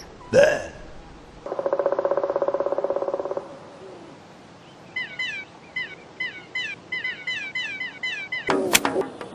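A cartoon soundtrack of effects without words: a quick falling swoosh, then a rapidly pulsing buzz for about two seconds, then a run of short falling bird-like chirps, about five a second. Near the end, sharp clinking knocks begin, hammer and chisel striking stone.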